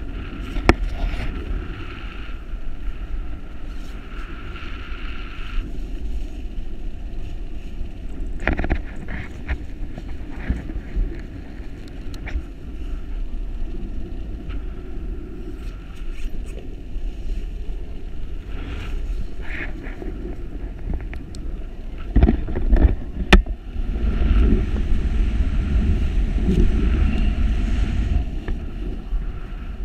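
Wind buffeting a skydiver's helmet-camera microphone during a descent under an open parachute canopy. It gets louder about 22 seconds in, with a few sharp knocks.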